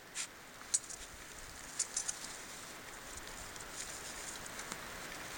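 A few light, sharp clicks and scrapes from a rock climber's gear and movements on the rock, bunched in the first two seconds, over a faint steady hiss.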